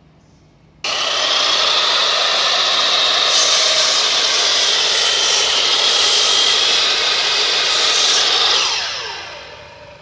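Makita LS1216L 305 mm slide compound miter saw switched on about a second in, its motor and blade running with a loud, steady high whine while the blade cuts into a thick timber beam. Near the end the trigger is released and the whine falls away as the blade spins down.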